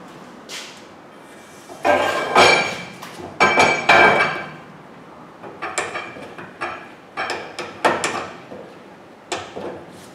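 Metal parts clanking and ringing at an open rear differential: a few loud strikes about two seconds in, followed by a run of lighter clicks and taps. This is the work of fitting the axle shafts and their C-clips.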